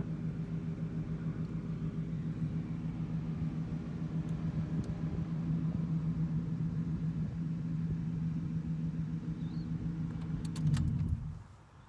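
A car engine running steadily with a low hum, which swells briefly and then winds down and stops near the end, with a few clicks as it does.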